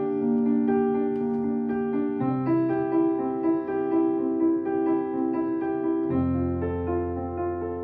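Piano playing slow sustained chords in F with repeated notes above the held bass, moving to a new chord about two seconds in and again about six seconds in.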